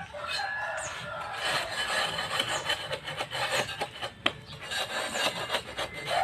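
Continuous rough rubbing and scraping on a concrete hollow block, in many short strokes.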